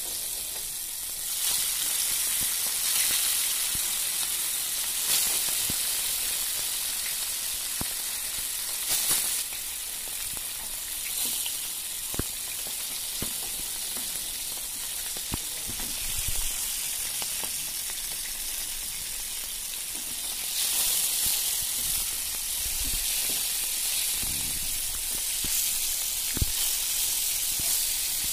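Marinated fish pieces sizzling steadily as they shallow-fry in hot oil in a wok, with scattered sharp pops and clicks.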